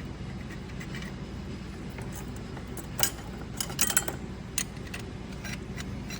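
Metal clutch plates clinking and clicking as they are stacked into a 2001 Suzuki Katana 750's clutch, alternating fibers and steels: a sharp click about three seconds in, then a quick cluster of clinks, over a low steady hum.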